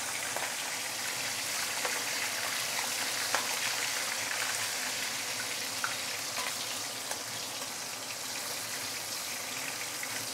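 Whole Indian mackerel frying in hot oil in a wok: a steady sizzle with a fine crackle of small pops.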